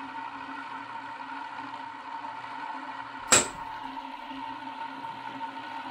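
Hand-built pulse motor running: a steady electric hum from its hand-wound coil, four layers of 20-gauge wire on a 3/4-inch carbon steel core, pulsing to drive the spinning rotor. A single sharp snap sounds a little past halfway through.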